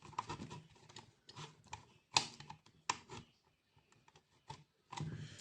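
Irregular light clicks and taps from small plastic parts, a battery and wires being handled, with one sharper click a little over two seconds in.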